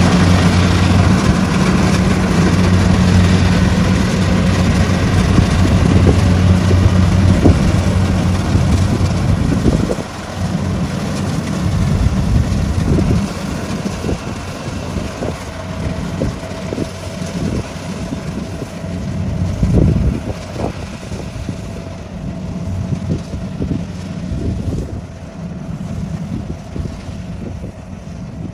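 Kubota crawler combine harvester running as it cuts rice, its engine hum loud and steady at first. About ten seconds in it drops suddenly to a lower level and then fades further as the machine moves away across the field.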